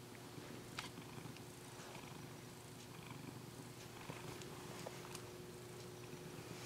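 Domestic cat purring steadily close to the microphone, with a few faint small clicks.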